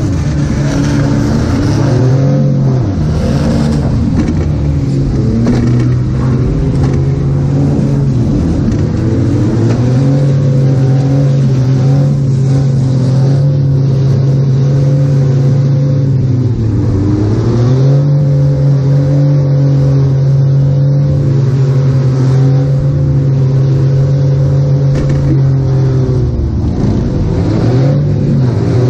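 Demolition derby minivan's engine heard from inside the stripped cabin, held at high revs. Three times the revs drop briefly and climb back: about three seconds in, midway through and near the end.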